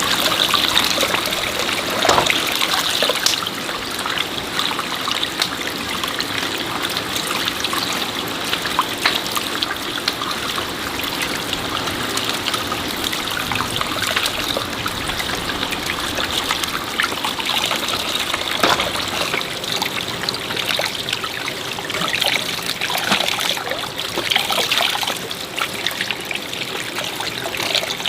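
Water trickling steadily, with occasional small splashes, at about 2 seconds in and again near the middle.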